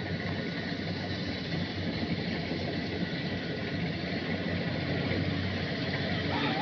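Combine harvester's diesel engine running steadily, a continuous low hum with machinery noise over it.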